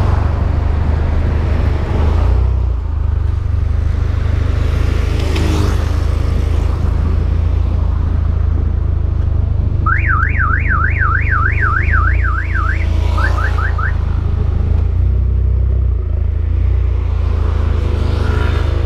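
Volkswagen Jetta GLI Mk6's turbocharged 2.0-litre four-cylinder, with aftermarket intake, downpipe and cat-back exhaust, running with a steady deep exhaust drone. About ten seconds in, a warbling alarm tone sweeps up and down about four times a second for roughly three seconds, then gives four quicker sweeps.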